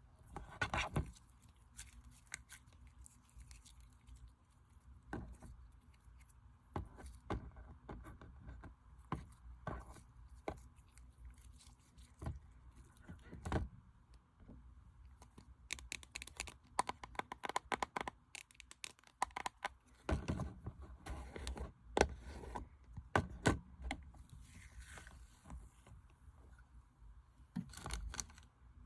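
Slime being worked by hand: scattered wet clicks and crackles, thickest in two clusters past the middle.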